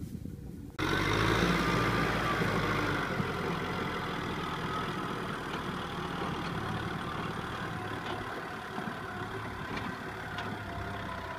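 Kubota M6040SU tractor's diesel engine running steadily while it pulls a loaded trailer, cutting in abruptly about a second in and easing slowly in loudness after that.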